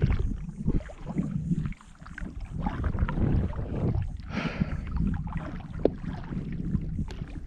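Kayak being paddled: paddle strokes dipping and splashing in the water, coming in uneven surges every second or two, with water washing along the hull.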